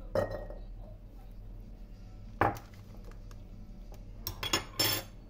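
Kitchenware clinking against glass and dishes: a sharp clink just after the start, another about two and a half seconds in, and a quick run of clinks and rattling near the end.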